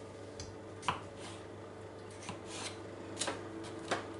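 Knife cutting raw peeled potatoes into quarters over a baking tray: a handful of sharp taps as the blade goes through and the pieces land on the tray, with soft rustling between.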